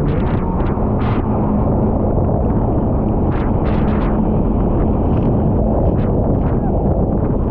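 Jet ski running at speed, its engine a steady drone under loud wind noise on the camera microphone and the rush of water spray. Several brief louder splashes of spray come through along the way.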